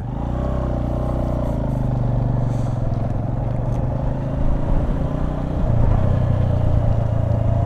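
Motorcycle engine running with a steady low hum while the bike rides down a gravel track, over a continuous rumble of road and wind noise.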